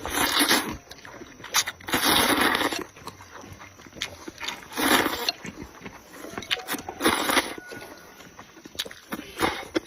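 Close-miked wet chewing and slurping, in loud bursts about every two seconds, with small smacking clicks between.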